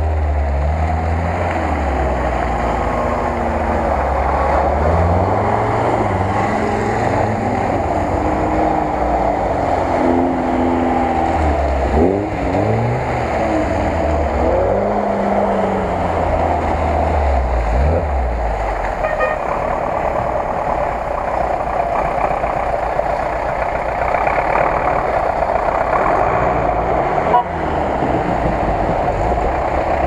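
Engines of off-road vehicles revving up and down as they drive through mud one after another: Lada Nivas, then a GAZ-66 truck near the end.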